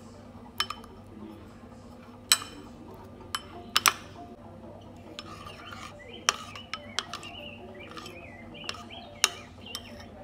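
Metal spoon stirring pecel peanut sauce in a ceramic bowl, clinking sharply against the side about a dozen times at irregular intervals, as the sauce paste is mixed with hot water.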